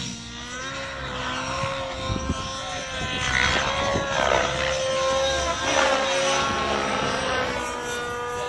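Goblin Black Nitro radio-controlled helicopter flying aerobatics: its two-stroke nitro engine runs at a high, fairly steady pitch that bends slightly up and down, with repeated swelling whooshes from the rotor blades as it manoeuvres.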